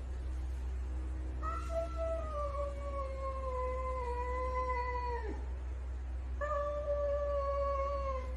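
A domestic cat yowling a warning at other cats in a standoff. There are two long, drawn-out moaning calls: the first lasts about four seconds and slides slowly lower in pitch before breaking off, and the second is shorter and steadier. A steady low hum runs underneath.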